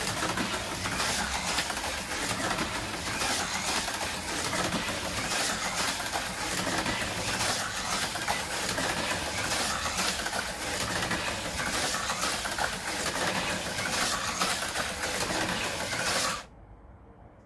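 AFX Mega G+ Audi LMP HO slot car lapping Tomy AFX track: its small electric motor and gears give a steady high whir with light ticking, rising and falling a little as it goes round, then stop suddenly near the end.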